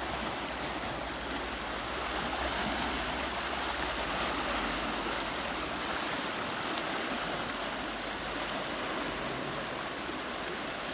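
Muddy floodwater from a cloudburst rushing fast over grass and around tree trunks, a steady rushing, splashing flow. The runoff is overflowing its channel and still rising.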